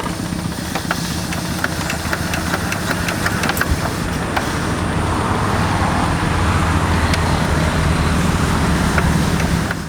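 Single-cylinder Yanmar diesel engine of a Quick G1000 hand tractor running steadily, with scattered sharp clicks and clatter over it.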